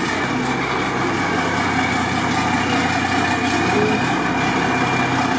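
Mercedes-Benz Unimog's diesel engine running steadily at low revs as the truck pulls slowly out of a garage.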